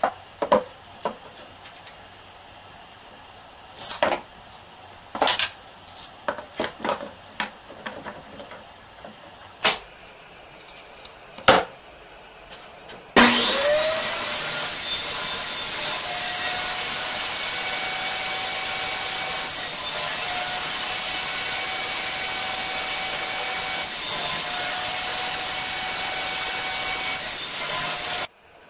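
Table saw switched on about halfway through: the motor spins up and runs steadily while a board is pushed through on a crosscut sled, then cuts off abruptly near the end. Before that, scattered knocks and clatter of boards and a tape measure being handled on the sled.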